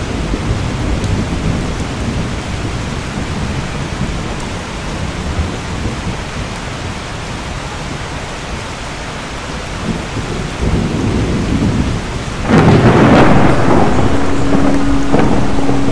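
Steady rain falling on a wet street, with a heavy low rumble. About twelve seconds in the noise suddenly grows louder, and a steady tone comes in near the end.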